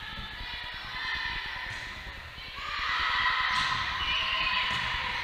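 Players and spectators shouting and calling out in a gymnasium hall during a volleyball rally, the voices swelling louder about halfway through, with a few sharp hits of the ball.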